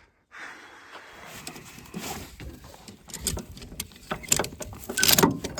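A run of clicks, knocks and rattles from handling around a pickup truck, with a louder cluster of knocks about five seconds in.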